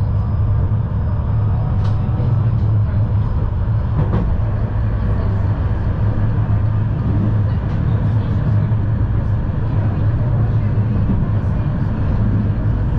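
Tram running along its track, heard from inside the car: a loud, steady low rumble of the wheels on the rails and the running gear, with a few faint clicks.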